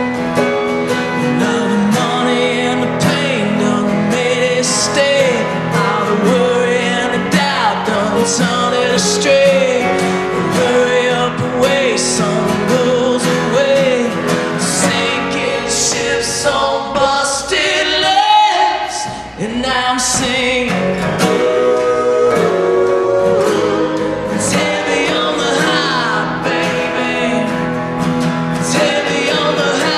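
Acoustic band playing a ballad: male singing over two strummed acoustic guitars and a digital piano, with a brief dip in the music a little past the middle.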